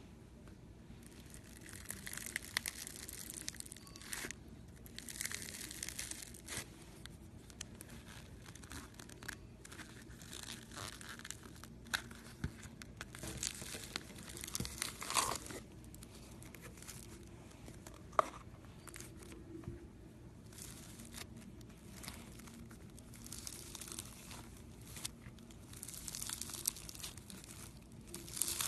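Crunchy slime being squished and worked, crackling and popping irregularly with sharp clicks and bursts of crinkly hiss.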